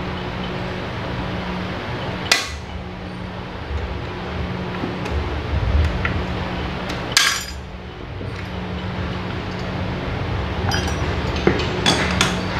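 A snap ring being worked off a shaft in a gondola hoist's drive: sharp metal clicks and clinks of tool on steel, one about two seconds in, another around seven seconds, and a cluster near the end, over a steady low hum.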